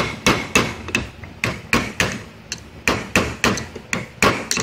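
Hammer blows driving the two-piece seal down into its seat in an Autochlor motor, struck through a plastic piece: a quick, somewhat uneven run of sharp taps, about three a second.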